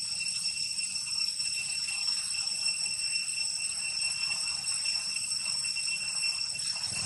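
Insects droning: one steady, high-pitched ringing tone with higher overtones that does not change.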